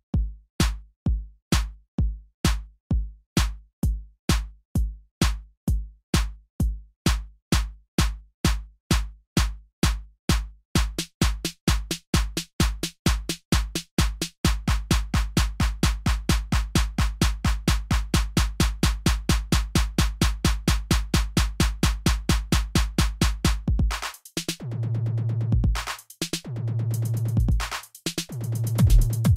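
Electronic dance music with a drum-machine kick drum. The beat, about two a second, speeds up into a fast build-up, breaks off about 24 seconds in for a few held bass stabs, then the kicks come back near the end.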